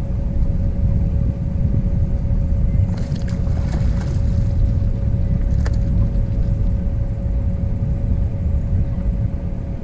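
A hooked bass thrashing and splashing at the water's surface beside the boat, about three to four seconds in. It is heard over a steady low rumble and a steady hum.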